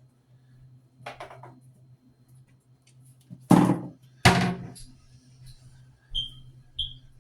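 Kitchen handling noises: a short rustle, then two loud thunks of things knocked or set down, followed by two short high squeaks near the end, over a steady low hum.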